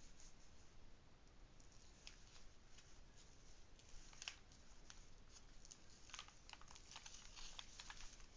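Faint crinkling and rustling of a diamond painting canvas and its plastic cover film as it is handled and straightened, in scattered soft crackles that grow busier in the second half.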